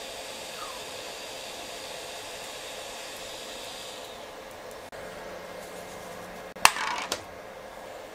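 Anycubic Kobra Neo 3D printer running while it prints, its cooling fans giving a steady whirring hiss. About six and a half seconds in there is a sharp click and a brief rattle.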